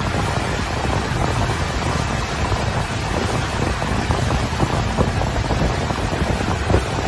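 Speedboat ride: steady wind buffeting the microphone over the rush of water and the running engine.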